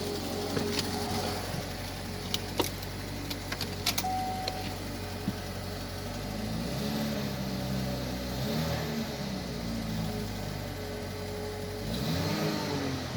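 Opel Insignia 2.0 turbo petrol engine running at idle, with scattered sharp clicks in the first few seconds. From about halfway through it is revved briefly three times, each time rising and falling back.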